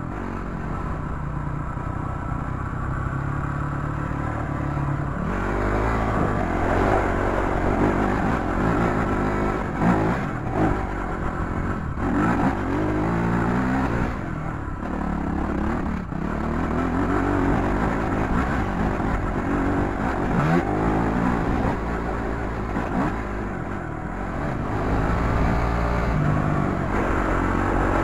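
Off-road dirt bike engine ridden on a rough trail, its revs rising and falling again and again as the rider shifts and throttles on and off. A few sharp knocks from the bike come around the middle.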